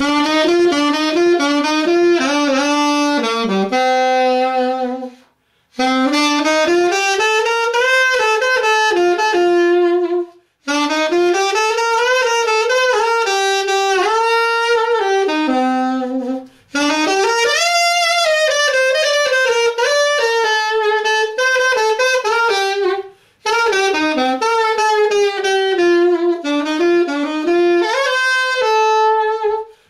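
1930 Martin 'Typewriter' alto saxophone, played on a Martin mouthpiece: an unaccompanied solo melody in five phrases with short breaks for breath between them.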